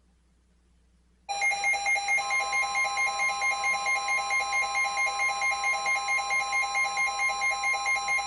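A weather alert radio's alarm beeping rapidly, about four beeps a second, after a second of silence. Under it, a steady NOAA Weather Radio warning alarm tone comes in about a second later. Together they signal an incoming warning broadcast.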